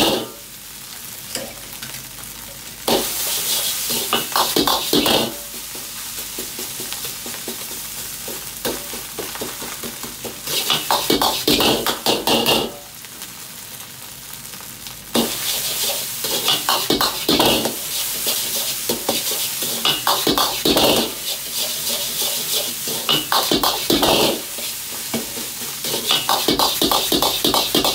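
Chinese ladle scraping and clacking against a carbon-steel wok in rapid strokes as egg fried rice is stir-fried over a high gas flame, with steady sizzling underneath. The ladle work comes in bursts; it stops for a few seconds twice, leaving only the sizzle, then runs on almost without a break through the last half.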